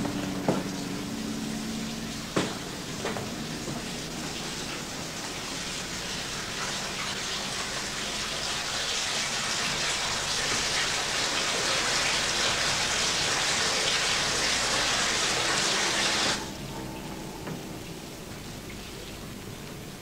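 Water running steadily, a rushing hiss that builds over several seconds and stops abruptly about sixteen seconds in. A sharp knock is heard about two seconds in.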